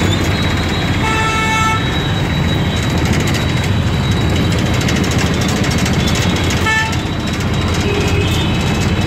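Busy road traffic heard from a vehicle moving through it: steady engine and road noise. A vehicle horn honks about a second in for just under a second, and there is a second, shorter toot near the 7-second mark.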